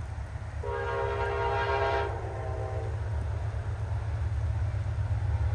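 Amtrak GE P42DC diesel locomotive sounding one long blast of its multi-chime air horn, a chord of several tones lasting about two seconds, the higher notes cutting off a little before the lower ones. Under it, steady rain hiss and the low rumble of the approaching train, growing louder near the end.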